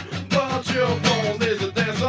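Background music: a song with a singing voice over strummed guitar and a steady beat.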